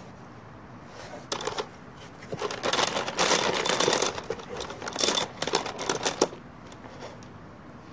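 Steel hex bolts with nuts clinking and rattling against one another as a hand stirs through a box full of them, in several bursts that stop about six seconds in.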